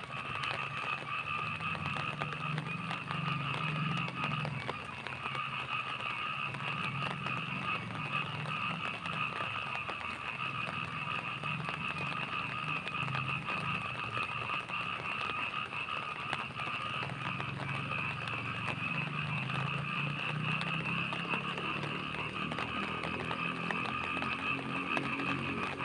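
Night rain falling as a fine crackle of drops, under a continuous chorus of frogs: a steady high trill over lower, uneven croaking.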